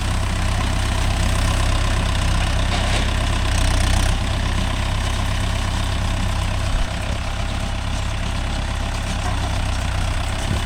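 Mahindra Yuvo Tech Plus 585 tractor's diesel engine running steadily, with a slightly louder stretch about three to four seconds in.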